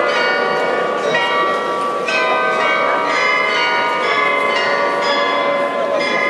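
The Glockenspiel bells in the tower of Munich's New Town Hall playing a tune: many tuned bells struck one after another, each ringing on under the next.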